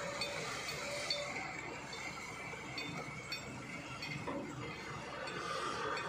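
XCMG crawler excavator at work, its diesel engine running steadily as it swings a bucket of soil over a tipper truck and empties it. A few light clinks are heard over the machine noise.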